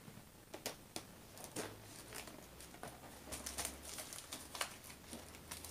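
Faint scattered taps, clicks and crinkles from hands handling a cardboard kit box and its paper packing.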